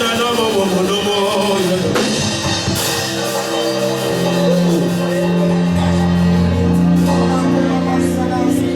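Worship music: long held chords over sustained bass notes, with a singing voice in the first second or two; the bass note changes about two-thirds of the way in.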